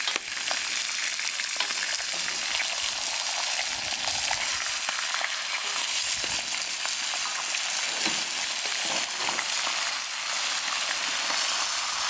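Duck meat sizzling as it fries in a hot kazan over a wood fire while it is turned with a wooden spatula: a steady high hiss with scattered small crackles from the burning firewood.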